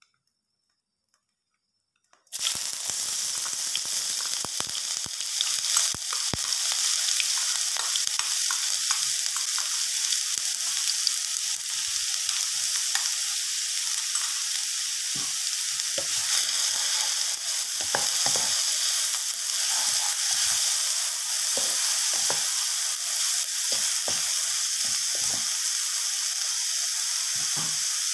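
Chopped onion, garlic and bird's eye chillies sizzling in hot oil in a non-stick pan, being sautéed until fragrant. The sizzle starts suddenly about two seconds in and stays steady, with scattered light clicks and scrapes of stirring.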